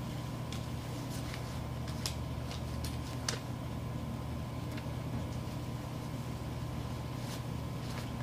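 Steady low room hum, with faint scattered rustles and clicks as hands dig in a cloth drawstring bag and pull out a paper name slip.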